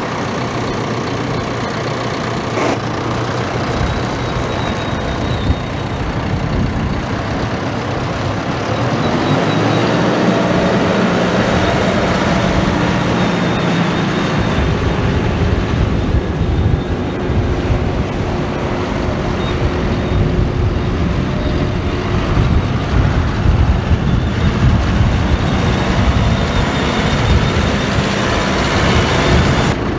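John Deere 5085E tractor's four-cylinder turbo diesel engine running as the tractor drives on gravel. About nine seconds in, the engine note climbs and a heavier low rumble comes in and stays for the rest of the drive.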